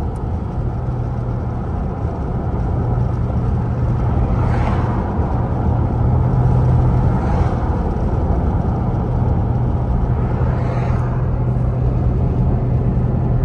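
Steady road and engine noise inside a moving car, with a constant low hum under the tyre rumble. Oncoming cars swish past three times, at about four and a half, seven and eleven seconds in.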